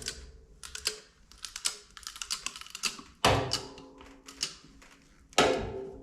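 Background music with two strong low struck notes that ring and fade, and irregular light clicks and taps between them.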